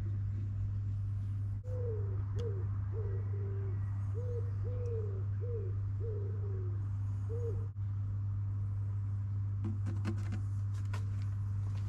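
A pigeon cooing, a run of about nine short coos each dipping slightly in pitch, over a steady low hum, with a few light clicks near the end.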